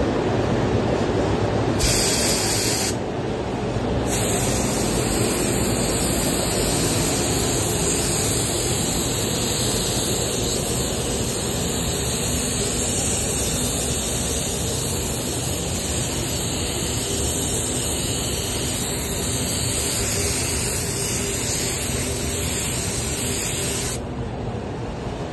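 Compressed-air gravity-feed paint spray gun hissing as it sprays paint onto a car panel. There is a short burst about two seconds in, then a long continuous hiss that cuts off about a second before the end, over a steady low background rumble.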